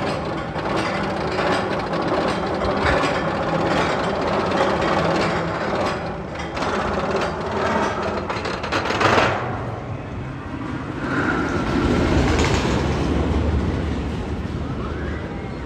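Magnum XL-200 roller coaster train clattering along its steel track, with rapid rattling clicks. It is loudest about nine seconds in, then settles into a lower rumble that fades near the end.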